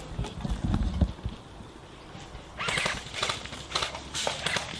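Footsteps and rustling of a person moving over rough ground. A few dull thumps come first, then an uneven run of scuffing steps starts about two and a half seconds in.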